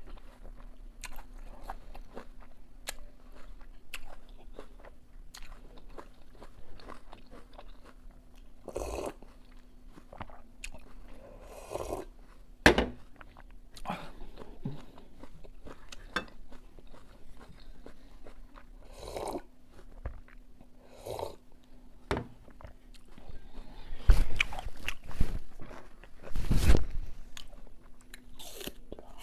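Close-miked eating: crisp bites into an apple and chewing, with several louder crunches about 13 seconds in and again near the end. A faint steady hum runs underneath.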